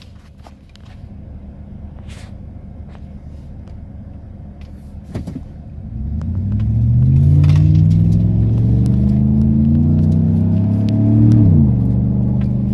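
Car engine heard from inside the cabin: a low idle rumble, then about six seconds in it pulls away and the engine note rises steadily under acceleration, dropping sharply near the end as the car shifts up a gear.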